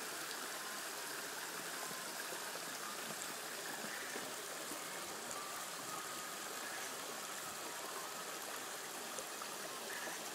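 A small stream flowing, a steady rush of running water.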